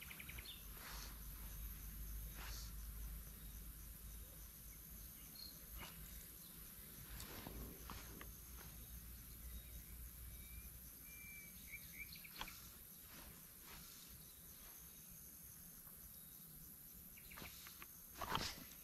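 Quiet riverside ambience: a faint steady insect trill, a few short bird chirps around the middle, and a low wind rumble on the microphone during the first few seconds. A brief rustling swish comes near the end.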